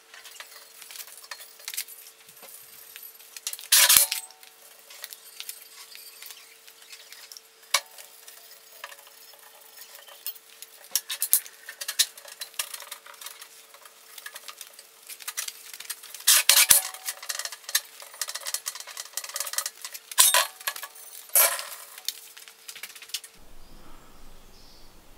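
Rag rubbing over a welded steel stand, with scraping and small knocks and several sharp metallic clanks as the steel shifts against the steel workbench, the loudest about four seconds in and a cluster later on. A faint steady hum lies under it until it drops away near the end.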